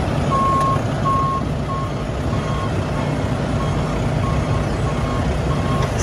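A vehicle's backup alarm beeping about twice a second over a steady engine running, the beeps fading a little in the middle and coming back stronger near the end.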